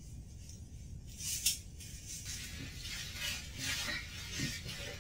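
Clear plastic wrap crackling and rustling as a person bound in it struggles, starting about a second in with a sharp crinkle, then irregular crackling, over a low steady background.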